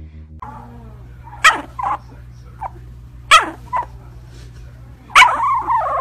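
A sleeping puppy yipping in its sleep: short sharp yips roughly every two seconds, each followed by a softer one, then a longer cry near the end that falls in pitch.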